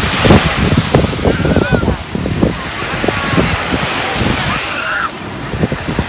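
Small sea waves washing onto a sandy shore, with splashing in the shallows and wind rumbling on the microphone; the surf is loudest in the first second. Brief high voices come through now and then.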